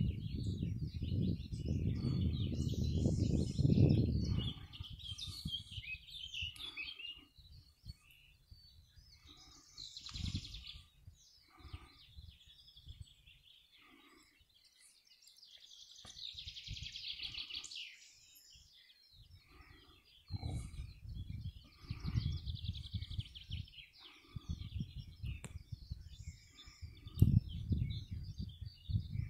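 Small birds chirping and calling on and off, with spells of wind rumbling on the microphone during the first few seconds, briefly around ten seconds in, and again through the last third.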